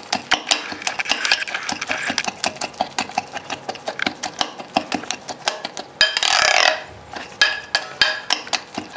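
Metal spoon stirring a thin batter of crushed biscuits and milk in a glass bowl, clinking and scraping against the glass in quick, irregular strokes several times a second. A brief louder rush of noise comes about six seconds in.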